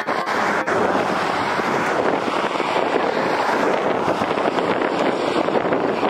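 Steady wind noise rushing and buffeting over the camera microphone, loud and even throughout.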